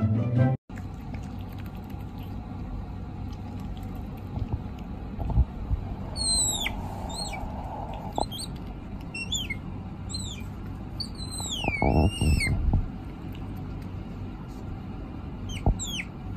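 A pet otter squeaking: high, thin chirps that slide down in pitch, coming in a cluster from about six to twelve seconds in and again near the end. Thumps and rustling from the otter being handled on a wooden table come in between.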